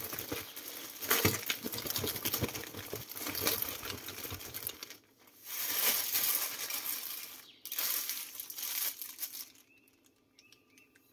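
Thin plastic bag of sliced raw potatoes and seasoning shaken hard, the plastic crinkling and rustling with the slices tumbling inside. The shaking pauses briefly about five seconds in and again near eight seconds, and stops about ten seconds in.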